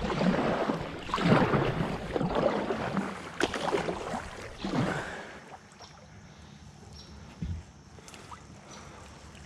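Double-bladed kayak paddle strokes splashing and swishing through the water, about one stroke a second. After about five seconds the strokes stop and it goes quieter, broken by a single dull thump.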